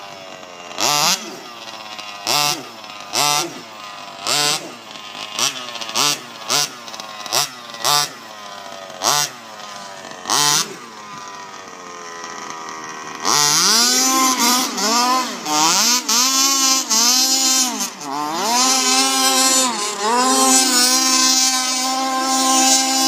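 Small engine of a rebuilt baja, blipped repeatedly at idle, about once a second for roughly the first half. It is then held at high revs, louder, its pitch dipping and climbing again and again.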